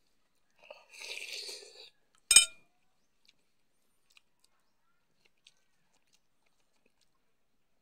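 Close-up eating sounds of a man eating: about a second of chewing, then one sharp clink a little over two seconds in, the loudest sound, followed by only a few faint small ticks.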